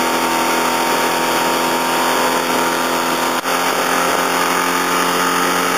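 Boat's outboard motor running steadily at towing speed, with a constant rush of wind and water.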